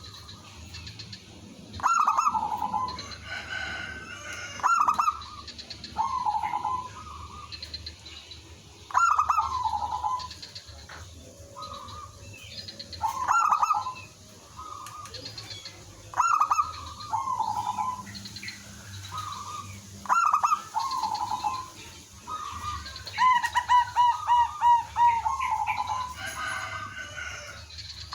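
Zebra doves cooing: short trilling coo phrases repeat every two to four seconds, several birds answering one another. Near the end comes a faster run of rapid coo notes.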